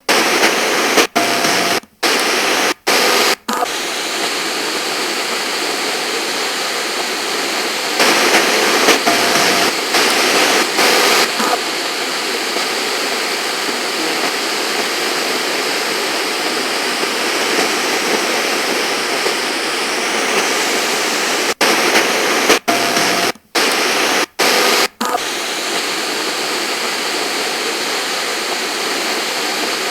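FM radio static hissing while the dial is tuned, with a few sudden brief cutouts in two clusters and a louder stretch of static partway through. Faint steady tones show through the hiss now and then.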